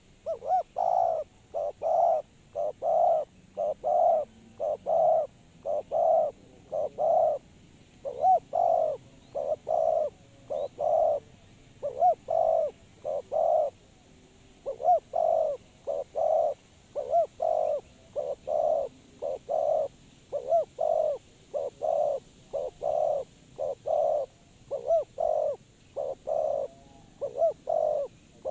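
Spotted dove cooing over and over: short, low notes given in runs of several, with brief pauses between the runs.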